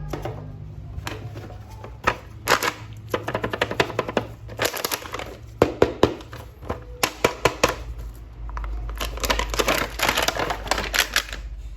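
Plastic crinkling and rapid, irregular clicks and crackles from handling a toy action figure and its packaging.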